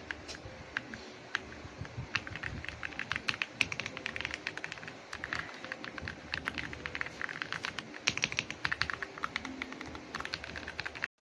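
Typing on an AULA F87 mechanical keyboard: a few scattered keystrokes, then quick runs of key clicks with short pauses between them. The sound cuts off suddenly near the end.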